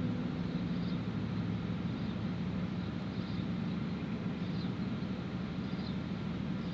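Electricity generators running as backup power during a power cut, a steady low drone.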